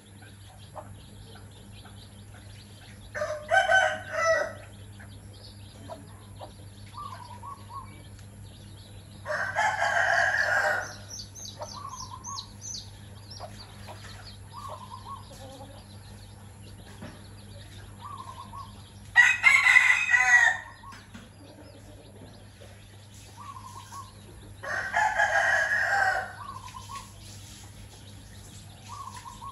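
A rooster crowing four times, each crow lasting a second or two. Between the crows, hens cluck softly in short notes and chicks peep.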